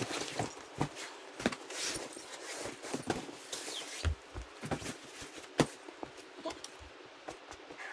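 Irregular sharp knocks and scuffs of a boulderer's climbing shoes and hands on the rock face as he moves between holds, about a dozen spread unevenly through the clip.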